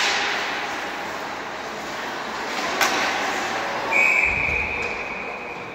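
Ice hockey rink: a sharp crack of puck or stick about three seconds in, then the referee's whistle, one long blast about four seconds in that fades away in the echo of the arena, stopping play.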